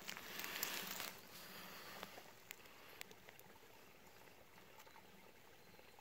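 Brief rustling in the first second, as of twigs and leaf litter being brushed, then a few faint clicks over a low steady hiss.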